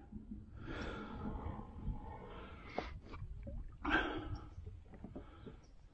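A man's heavy, noisy breaths close to the microphone, three of them in a row, over a low steady rumble.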